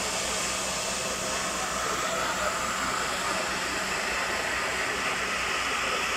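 Liquefied petroleum gas escaping under pressure from the damaged gas plant's storage tank: a steady, loud hiss that does not change.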